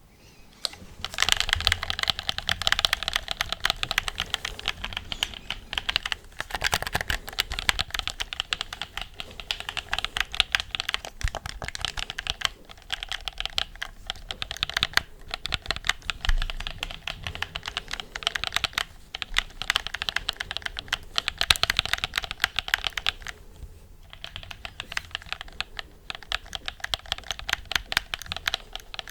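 Rapid, dense clicking and tapping very close to the microphone, like fast typing, in long runs broken by short pauses about six, fifteen and twenty-four seconds in.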